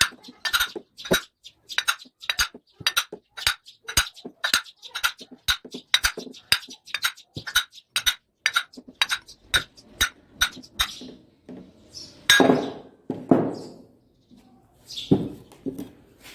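Metal-on-metal tapping, about three sharp knocks a second, as a blunted screwdriver is struck to drive the end cover off a washing-machine motor so its bearings can be reached. Near the end there is a louder metallic clatter.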